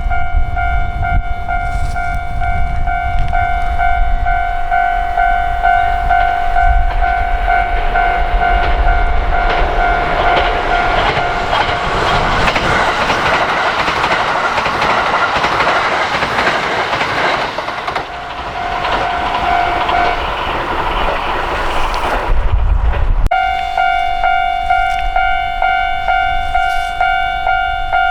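Japanese railway level-crossing warning bell ringing steadily while a train passes, its rumble and wheel clatter swelling in the middle and covering the bell. Near the end the bell drops out briefly, then starts again abruptly.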